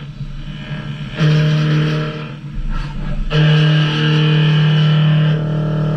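CNC turn-mill machine cutting a metal shaft: a steady machining tone with a fixed pitch that swells loud about a second in and again from just past three seconds to past five, easing off between cuts.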